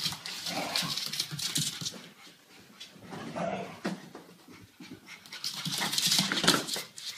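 A dog panting in quick, noisy breaths that come in two loud stretches, with a few short whimpers in between.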